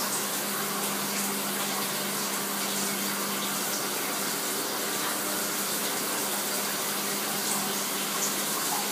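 A shower running: a steady hiss of spraying water.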